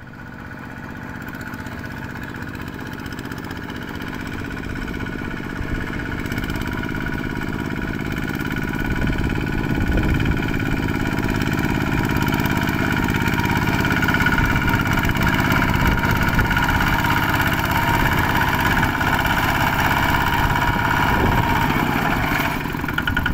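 Kubota ZT140 walking tractor's single-cylinder diesel engine running steadily as it drives closer, growing louder throughout.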